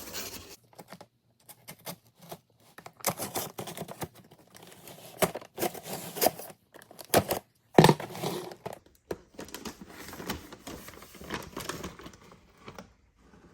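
Wrapping on a firework cake being cut and torn open, with irregular crinkling, scraping and tearing and a few sharp knocks, the loudest about eight seconds in.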